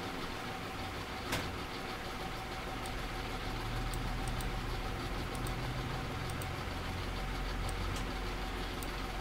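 Steady low rumble like an idling engine, growing louder about three seconds in, with one sharp click about a second and a half in.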